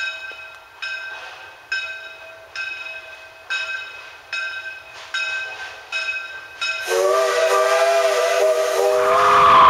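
A train's bell rings about once a second, each stroke fading before the next. About seven seconds in, a steam whistle starts blowing a steady chord of several tones with a hiss of steam, and grows louder to the end.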